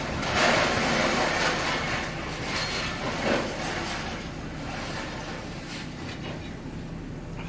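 Scrap metal scraping and clattering as a scrapyard crane's grapple claw picks it up, over the steady hum of the crane's engine. The loudest rattling is in the first two seconds, with another clank about three seconds in.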